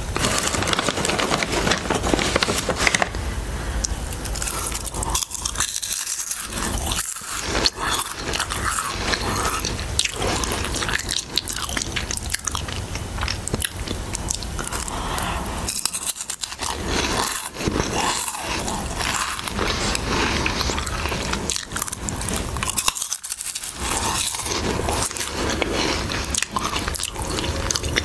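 Close-miked crunching and chewing of Harvest Snaps green pea snack crisps, a dense run of crisp crackles with no pauses. The snack bag crinkles as a hand reaches in near the start and again near the end.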